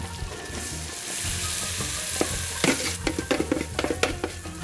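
Butter and flour sizzling in a hot pot, with a spoon stirring them together. The first two and a half seconds or so are a steady sizzle; after that the spoon clicks and knocks quickly against the pot.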